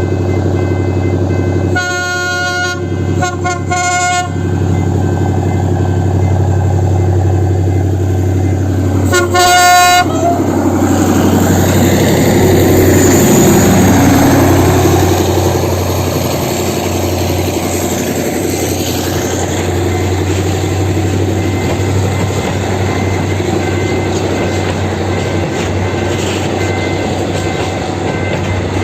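TCDD DE 24000-class diesel-electric locomotive working hard up a grade at the head of a freight train, its engine droning steadily. It sounds its horn in three short blasts a couple of seconds in and once more about a third of the way through, then passes loudest about halfway and the train rumbles on by.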